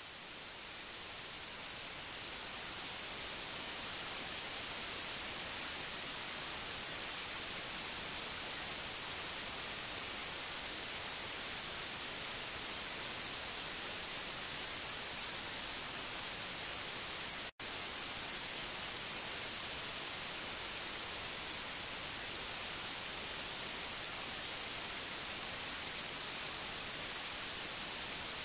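Television static: a steady, bright hiss that fades in over the first few seconds and then holds level, cutting out for a split second about two-thirds of the way through.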